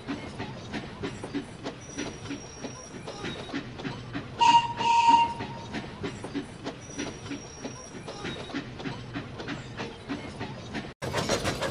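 Dubbed steam locomotive sound effects: a steady chuffing rhythm with wheels clicking over rail joints, and two loud whistle blasts about four and a half seconds in. Near the end it cuts abruptly to a louder, denser running sound.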